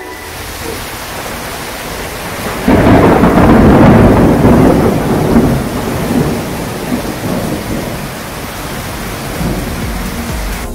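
Steady heavy rain falling, with a sudden loud rumble of thunder breaking in about three seconds in and rolling away over the next few seconds.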